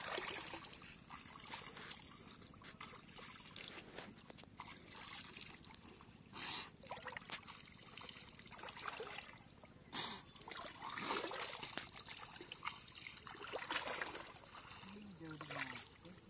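Water splashing and trickling as a person wading in shallow water rinses a cast net and scoops water with the hands. The splashes come irregularly, with two short, sharper bursts about six and ten seconds in.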